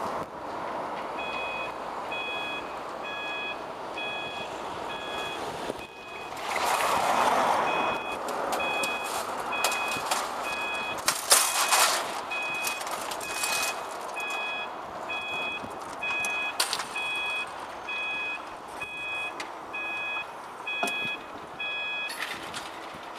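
Level crossing warning alarm beeping steadily, about one multi-tone beep every three-quarters of a second, over passing road traffic. The beeping stops near the end, with the barriers down across the road.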